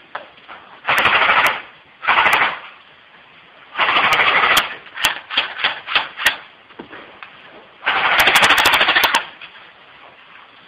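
Automatic gunfire from an assault rifle in bursts: two short bursts, a longer one about four seconds in, a few separate shots, then a longer burst near the end.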